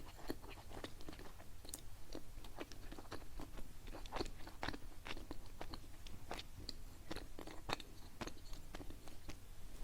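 Close-miked chewing of a soft, sticky qingtuan (glutinous rice dumpling): quiet, irregular mouth clicks, several a second.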